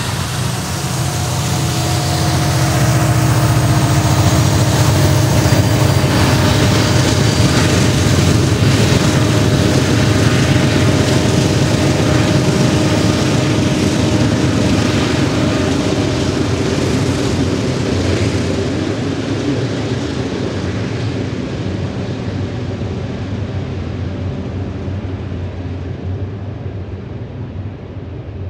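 Two rear-end diesel-electric locomotives running under power at the back of a loaded coal train: a deep, steady engine rumble with a constant whine above it. It builds over the first few seconds, holds loud through the middle, and fades gradually as the locomotives disappear into the tunnel.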